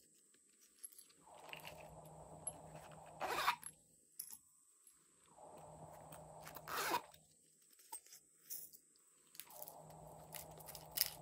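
Zippers on small silicone unicorn-shaped pouches being handled and pulled open, amid soft handling noise. Three short, sharp sounds stand out, about three and a half seconds apart.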